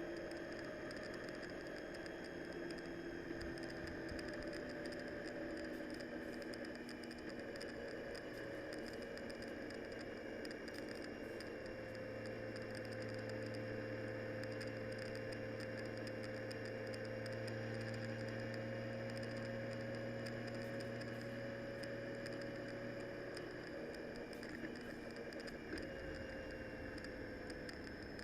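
Rain pattering during a ride on the road, over a steady vehicle hum whose tones drift slowly up and down in pitch.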